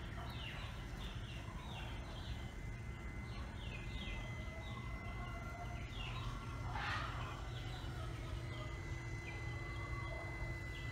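Small birds chirping in quick, repeated short calls, faint over a low steady hum.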